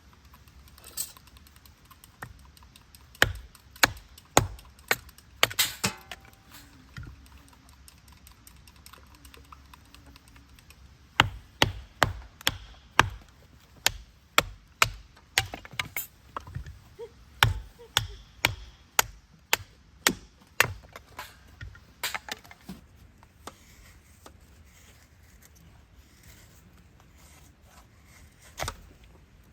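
Chopping, with sharp strokes of a blade against wood. A few scattered strokes come early, then a steady run of about two a second lasts around ten seconds, with a few more strokes near the end.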